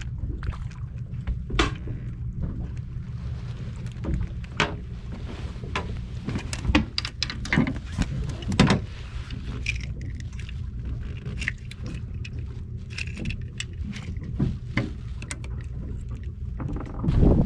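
Boat's engine idling with a steady low hum, under scattered sharp knocks and taps from fishing gear and catch being handled on the fiberglass deck.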